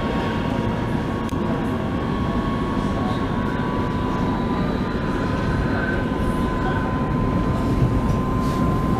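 Oslo metro train running steadily, heard from inside the car: a continuous rumble of wheels on rails with a steady high tone over it.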